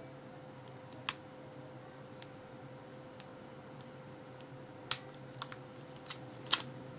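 Lock pick and tension wrench working the four pins of a laminated steel padlock, single pin picking: scattered small clicks and ticks, a sharper click about a second in and several more near the end.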